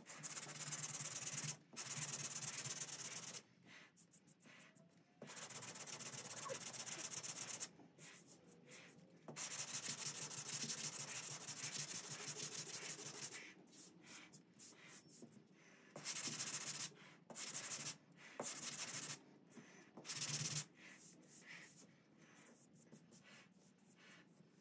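Hand sanding of cured body filler over a Chevy C10 cab seam with a sanding block: runs of rapid scratchy strokes, each a few seconds long, with short pauses between them. The runs get shorter in the second half, as the first coat of filler is knocked down.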